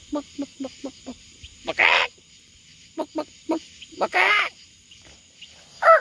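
Penned poultry calling: a run of short clucks, about four a second, broken twice by a louder, harsh squawk.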